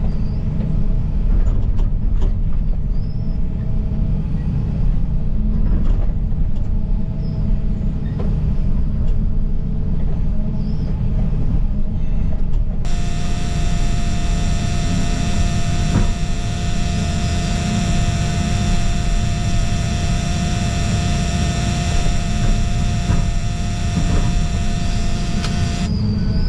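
John Deere 245 excavator's engine and hydraulics running steadily under load, heard from inside the cab, with a few short knocks. About halfway through a steady high whine joins the deep engine rumble.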